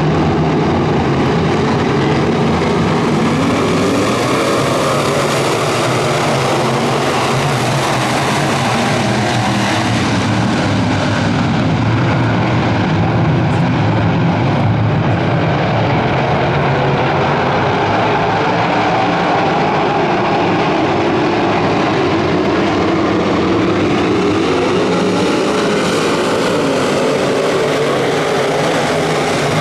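A field of IMCA Modified dirt-track race cars' V8 engines running loud together, the sound rising and falling as the pack sweeps past.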